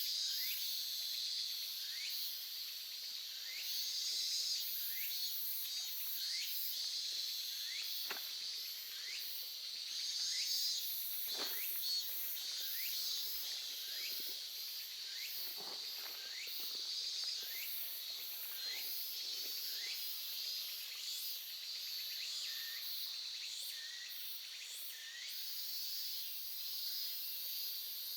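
A shallow stream flows with a steady high hiss and a few brief low gurgles. Insects chirr over it, and a short call repeats about once a second.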